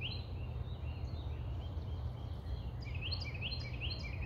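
A songbird chirping: short notes that each sweep sharply upward, one right at the start and then a quick run of four about three seconds in. A steady low rumble of outdoor background noise runs underneath.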